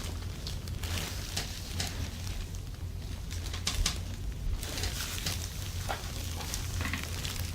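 Hands massaging a person's back and neck: soft scattered rustling and light taps, over a steady low hum.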